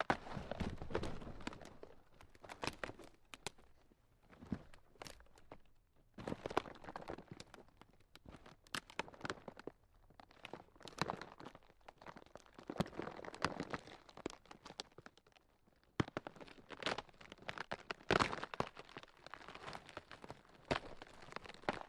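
Ground cracking: irregular crackling and crunching snaps in uneven clusters, with quieter spells about 4 s and 15 s in.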